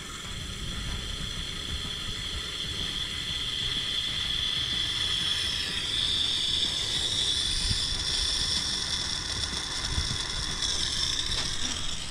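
Water hissing and whistling as it rushes through the water meter and a newly installed pressure reduction valve while the meter valve is opened and the pipes refill. The high whistle steps up in pitch and grows louder about six seconds in.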